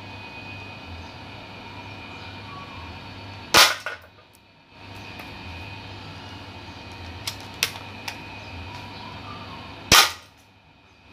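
D-Cobra Reborn spring-powered airsoft M4 firing two single shots about six seconds apart, each a sharp crack. A few light clicks come between the shots.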